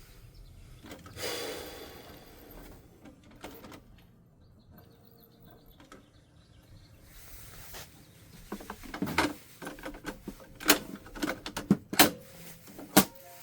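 Plastic clicks and knocks of hands working an inkjet printer while the printhead is fitted. A brief rustle comes about a second in, then sharp clicks come more often over the last five seconds, loudest near the end.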